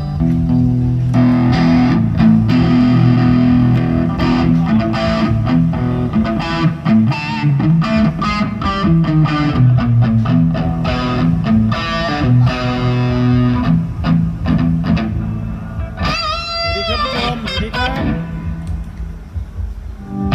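Electric guitar played through a distorted tone, with quick picked notes over sustained low chords and a wavering pitch bend about sixteen seconds in.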